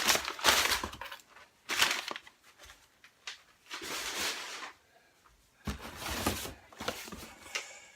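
Packaging rustling and crinkling in several short bursts, with quiet gaps between, as items are rummaged out of a box of tools.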